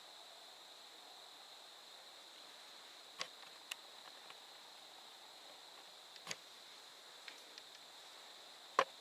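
Four sharp cracks or knocks, the loudest one near the end, over a faint, steady high-pitched hum.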